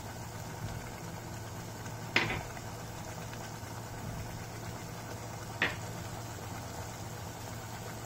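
Steady low hum with a faint even hiss, broken twice by a short sharp tap, a spoon on the steel kadhai as spice powders are added to the cooking masala.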